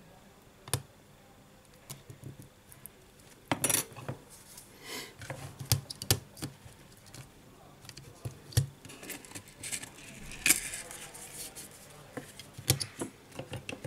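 Scattered small clicks, taps and rustles of fingers and tweezers on an opened smartphone's circuit board and plastic parts as they are pressed down and fitted back together.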